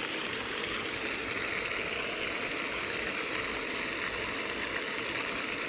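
Steady hiss and splash of a pond fountain aerator throwing a spray of water up and falling back onto the pond.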